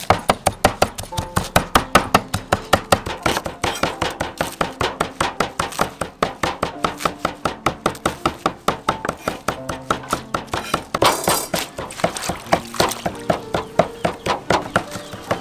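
Cleaver chopping rapidly on a wooden chopping block, about four to five strokes a second, mincing fish into paste and then cutting leafy greens.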